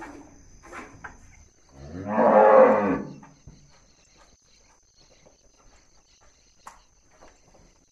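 A bovine mooing once, loud and about a second and a half long, roughly two seconds in; the call rises and then falls in pitch.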